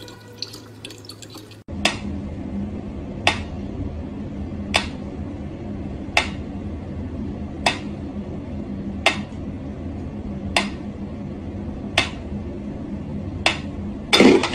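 A mechanical pyramid metronome ticking slowly, one sharp tick about every second and a half, over a steady low hum. Before it, for about the first second and a half, a thin stream from a tap trickles into a plastic bottle. A louder, brief noise comes near the end.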